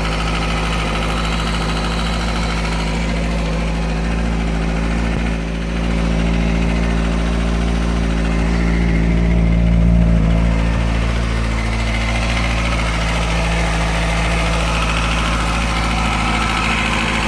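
2005 Kawasaki ZX-6R's inline-four engine idling, with a ticking noise that the previous owner called a normal Kawasaki trait. It swells a little louder about halfway through.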